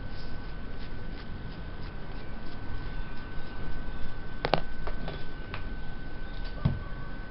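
Light clicks and taps, a sharp double click about halfway through and a few more near the end, over a steady faint high-pitched hum.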